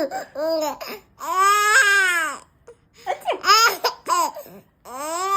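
A nine-month-old baby's high-pitched cries: two long drawn-out wails, about a second or more each, with a few short calls between them.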